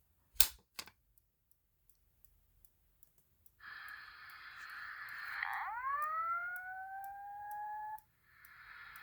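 Fire alarm pull station pulled with a couple of sharp clicks. About three and a half seconds later a Simplex voice-evacuation speaker starts its alarm signal: a harsh tone that sweeps upward in pitch, breaks off briefly near the end, then starts again.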